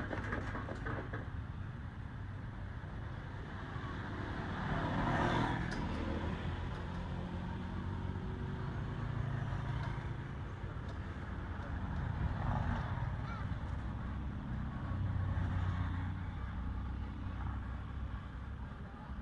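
Steady low rumble of road traffic, swelling as a vehicle passes about five seconds in and again twice later.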